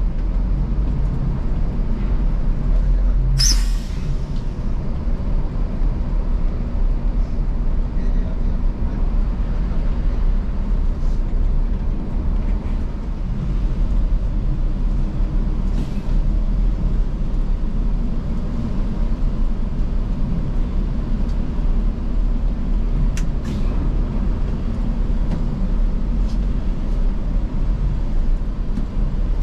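Coach engine running steadily with a low drone, heard from inside the cabin. A short, sharp hiss of air brakes comes about three seconds in, and a few faint clicks follow later.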